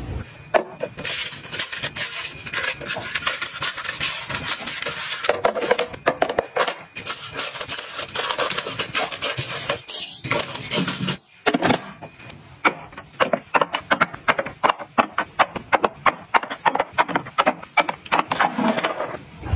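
Small hard objects being handled and set down, making many quick irregular clicks, taps and clatters, with rustling between them.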